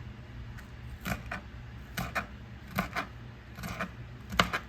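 Knife chopping on a cutting board: sharp strokes at an uneven pace, roughly one or two a second, some in quick pairs, over a low steady hum.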